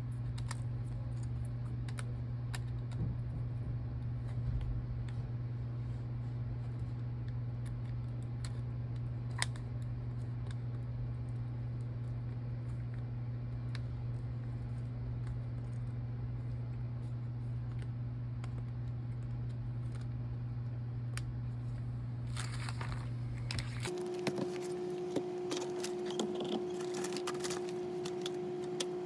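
Scattered light clicks and taps of hands working on a laptop's internal parts and cable connectors, over a steady low hum. About 24 seconds in, the background changes abruptly to a steadier, higher-pitched hum, and the small clicks come more often.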